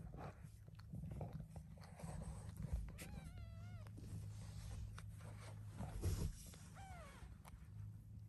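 Newborn kitten mewing twice: a wavering, high-pitched mew about three seconds in and a shorter falling one near seven seconds. Between them come small wet clicks and rustles from the mother cat licking the kittens, over a low steady hum.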